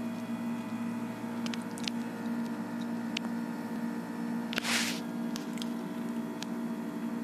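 Kitchen knife cutting okra pods on a wooden chopping board: a few sharp, spaced-out clicks of the blade meeting the board, with one brief louder swish about four and a half seconds in. A steady low electrical hum runs under it.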